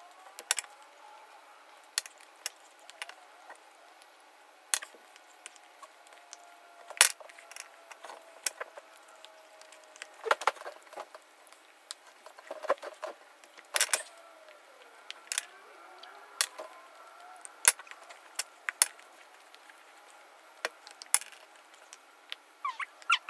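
Scattered sharp clicks and cracks, a few much louder than the rest, of solid hard chocolate being bitten and chewed.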